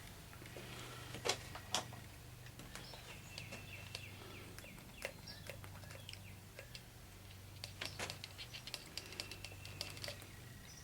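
Light metal clicks and taps from hydraulic lifters being handled and set into the lifter bores of a small-block Chevy 383 stroker, with a quick run of small ticks near the end, over a faint steady hum.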